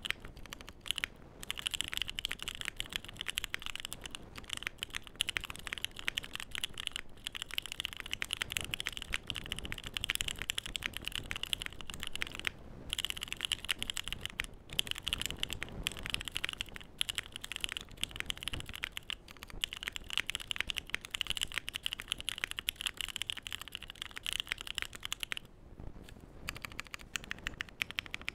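Continuous typing on a Bakeneko 60% mechanical keyboard with stock Durock Light Tactile switches, a polycarbonate plate and ABS keycaps: a dense run of key clacks. It breaks briefly about twelve seconds in and again near the end.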